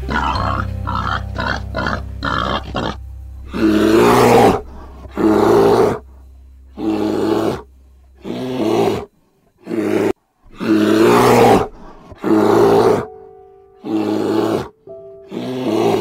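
An animal calling repeatedly: a quick run of short calls, then loud calls each under a second long, about one a second, over background music.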